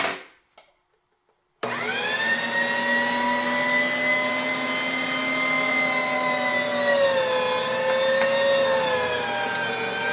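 Electric meat grinder motor switched on after a second or two of near silence, then running with a steady whine while brisket trimmings are pushed through the large die; its pitch drops and wavers about seven seconds in as the meat loads it.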